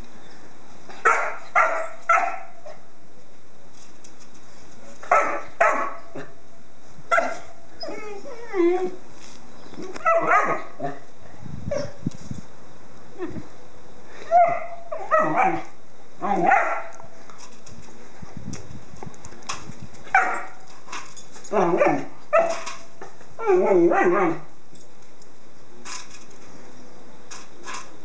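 German Shorthaired Pointer puppy barking in short bursts, one to three barks at a time every few seconds, while playing with an empty foil pie dish.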